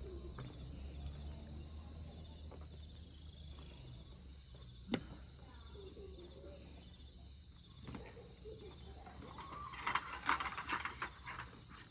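Crickets chirring steadily at night over a low hum, with a few single clicks and a short burst of rattling and knocking near the end.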